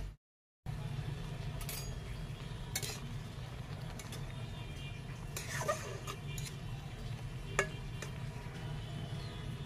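A utensil stirs a simmering, watery curry in an aluminium kadai, clinking sharply against the pan four or five times. Under it runs a steady low rumble, and the sound drops out briefly just after the start.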